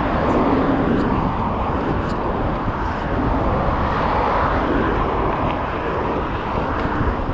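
Steady rush of wind and road noise while riding a bicycle along a city street, with car traffic around.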